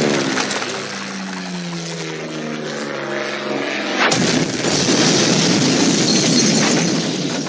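Cartoon sound effects: a tone sliding steadily downward in pitch, then a sudden explosion about four seconds in, its loud rumble lasting about three seconds.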